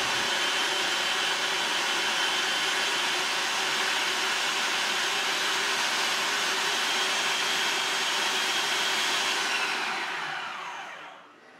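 Electric food processor motor running steadily, its blade whirring through a thin liquid batter, then switched off about ten seconds in and spinning down to a stop.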